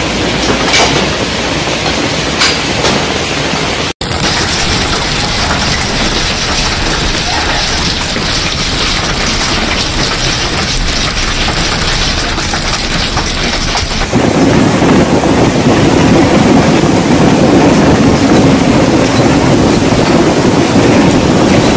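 Heavy hail and rain pouring down, a dense steady hiss heard in three successive clips, with a few sharp clicks in the first. The last clip, from about two-thirds of the way in, is louder and deeper, with a low rumble under the hiss.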